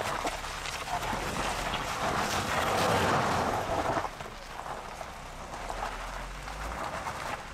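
An SUV climbing a slope of loose small stones, engine running and tyres working on the gravel, heard from a distance as a rushing noise that drops off about four seconds in.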